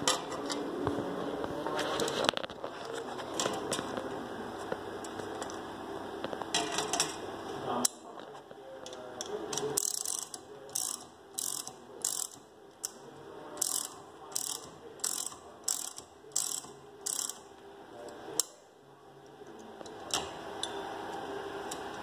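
Scattered clicks and knocks, then the ratchet wrench of a Rivetec HL-1 hand rivet-nut tool clicking through about a dozen evenly spaced strokes, roughly one and a half a second, as a rivet nut is drawn up and set in sheet steel.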